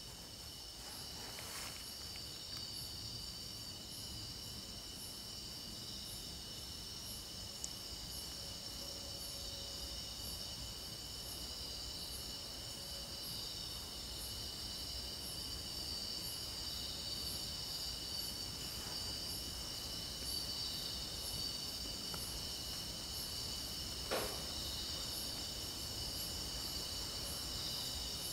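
Steady chorus of night insects chirping, a layered high trill with an evenly pulsing top note. One short tap sounds about three-quarters of the way through.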